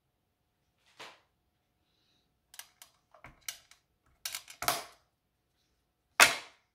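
Irregular small knocks and clacks of a stamping platform and craft tools handled on a tabletop, about a dozen in all, with the loudest knock near the end.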